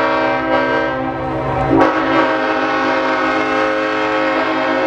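Lead locomotive Clinchfield 800's multi-chime air horn blowing a long sustained chord over the low rumble of the train on the trestle, with a fresh blast starting about two seconds in.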